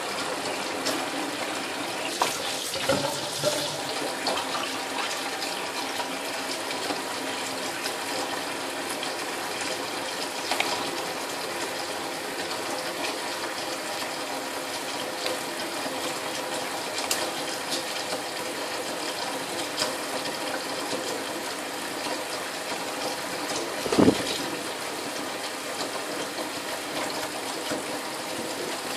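Kitchen tap running steadily in a thin stream into a stainless steel sink, with small splashes and clicks, and one sharp knock about five seconds before the end.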